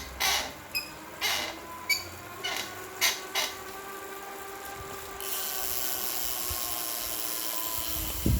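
Wahoo Kickr smart bike trainer squeaking in short sharp bursts, roughly one every half second to second, over a faint whine that falls slowly in pitch. A steady high hiss comes in about five seconds in.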